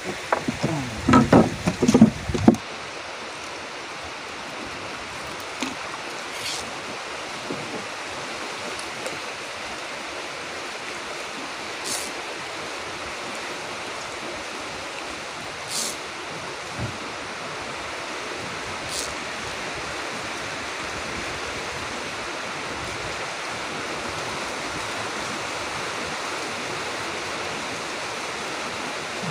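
Steady hiss of open-air river ambience, water and air noise, with a few faint short high ticks. A cluster of louder short sounds fills the first two seconds.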